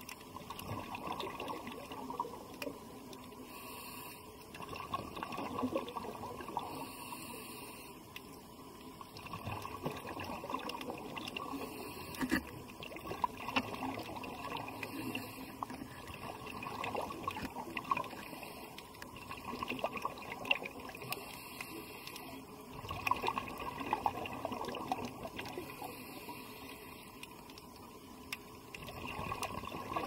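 Underwater ambience picked up through a camera housing: water washing and swelling every few seconds, with scattered faint clicks.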